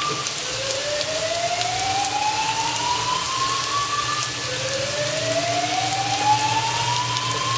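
Smoke alarm sounding a slow rising whoop that repeats about every four seconds, set off by someone else and not by this cooking. Beneath it, potato latkes sizzle steadily in hot oil.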